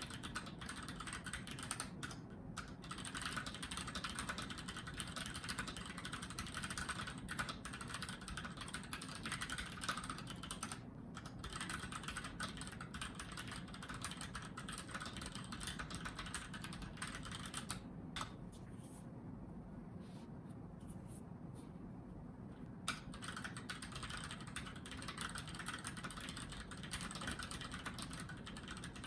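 Typing on a Keychron K6 compact mechanical keyboard: a fast, continuous run of key clacks, with short breaks and one pause of a few seconds about two-thirds of the way through.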